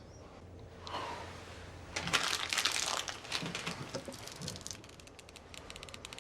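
A wrapper being crumpled close up, crinkling and crackling: it starts about two seconds in, is loudest for about a second, then thins to scattered crackles.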